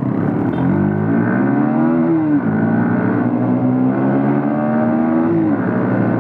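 Motorcycle engine heard from the rider's seat, accelerating through the gears: the pitch climbs, drops at a gear change a little over two seconds in, holds and rises again, and drops at another shift near the end.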